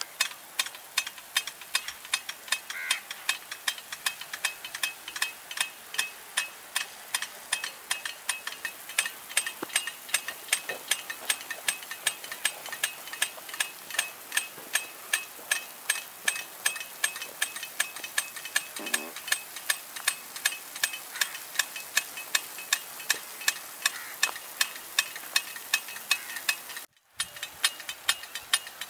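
Rain gun sprinklers running, with the rapid, regular clicking of the swinging impact arm striking the water jet as the gun steps round, several clicks a second over a steady hiss of spray. There is a brief break near the end.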